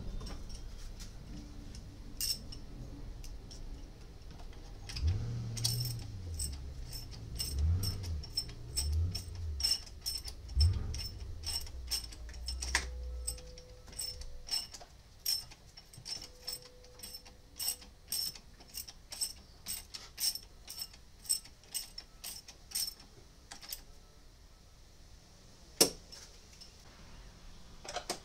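Ratchet wrench clicking in a steady run, about two clicks a second, as a bolt on a Toyota Sienna's engine torque strut is turned. There is one louder click near the end and some low rumbling in the first half.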